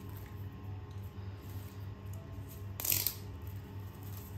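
Background music with a steady low pulsing beat. About three seconds in comes one brief rustle of handling.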